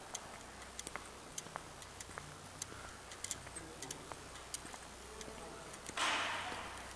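Faint, irregular clicks and ticks, several a second, with a short rushing noise about six seconds in that fades away.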